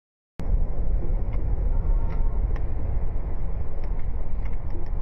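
Car driving along a road, heard from inside the cabin: a steady low rumble of road and engine noise that starts suddenly about half a second in, with a few faint ticks.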